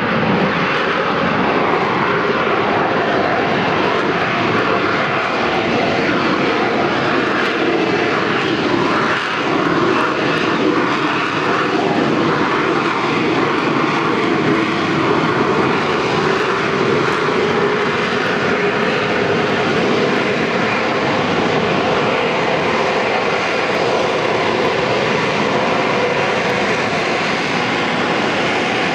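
Harrier jump jet's Pegasus turbofan engine running loud and steady as the jet flies low and slows into a hover: a continuous jet noise with a faint steady whine in it.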